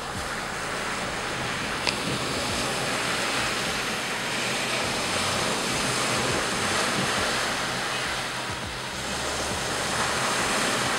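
Choppy wind-driven waves on a dam breaking and washing up over a flooded lakeshore road in a steady rush of surf, with wind buffeting the microphone. A single short click about two seconds in.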